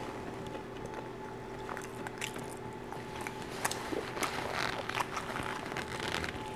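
Close-miked chewing of crusty baked garlic-knot bread, with scattered small crunches and wet mouth clicks.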